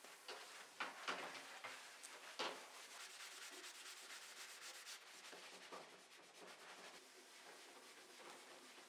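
Faint scratchy scrubbing of a wet, soapy wooden floorboard by hand, in quick back-and-forth strokes, with a few louder scrapes in the first couple of seconds.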